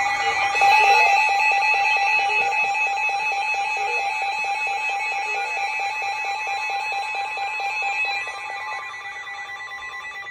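Emergency Alert System attention signal: a steady electronic alarm of several held tones, with a fast pulsing beep over it that stops shortly before the tones cut off.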